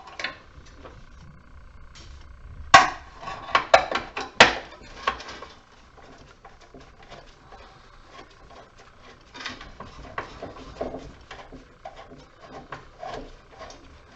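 Metal parts of a light fixture being handled and taken apart with hand tools: three sharp knocks a little under 3 s, near 4 s and about 4.5 s in, the last the loudest. Later comes a long run of small clicks and scrapes.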